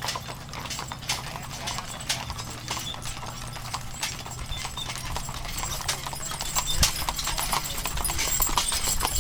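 Hooves of draft teams pulling covered wagons clip-clopping on asphalt, many overlapping steps, over a low steady rumble. The hoofbeats grow louder near the end as a team passes close by.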